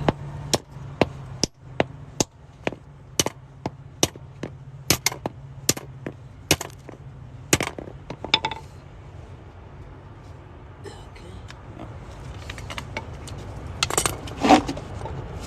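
Sharp metal clinks and taps, about a dozen and a half at uneven spacing over the first eight seconds, then a quieter stretch and a few more clinks near the end: a freshly removed locking lug nut being knocked off the lug nut removal socket.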